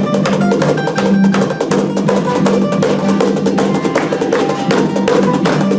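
Live band playing an instrumental passage: a fast, steady percussion beat over held bass and guitar notes.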